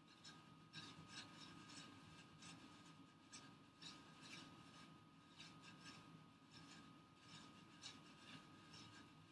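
Faint, scratchy strokes of a concealer applicator being brushed back and forth on the skin under the eye, a few strokes a second, with a faint steady hum behind.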